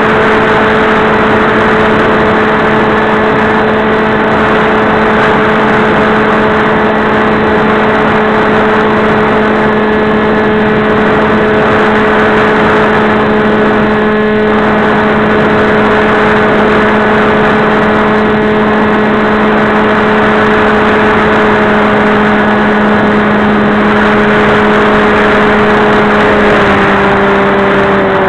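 Radio-controlled fixed-wing model airplane's motor and propeller running at a steady pitch, heard from a camera on board over heavy wind rush; the pitch steps down a little near the end.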